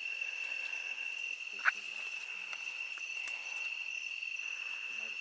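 Steady chorus of night insects, a continuous high trill. One sharp snap sounds about a second and a half in.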